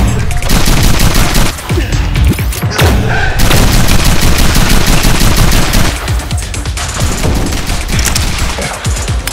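Rapid, sustained volleys of gunfire-like shots from Nerf blasters in a firefight, over loud action music.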